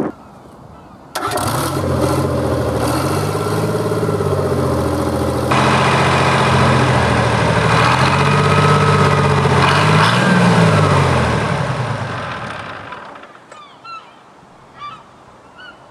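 Detroit Diesel 6-71 two-stroke six-cylinder diesel engine fired by a spring starter: it catches abruptly about a second in and runs loudly with the revs wavering, rises briefly after about ten seconds, then is shut off and runs down to a stop a few seconds before the end.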